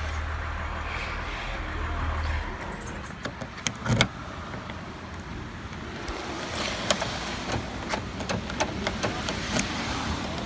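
A newly cut Ilco TR47 key being worked in a 2005 Toyota Camry's door lock: sharp metallic clicks and rattles, loudest about four seconds in, then a run of many quicker clicks in the second half. A low steady hum cuts off about two and a half seconds in.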